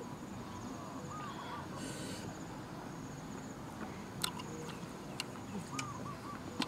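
A person eating cooked snails: a short sucking slurp about two seconds in and a few light clicks, over a thin steady high insect buzz.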